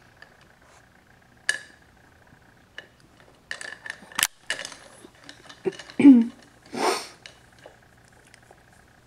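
Hard plastic toys on a baby's activity centre being knocked and rattled: scattered clicks and clatters, one sharp click among them. There is a short vocal sound about six seconds in and a brief breathy hiss just after.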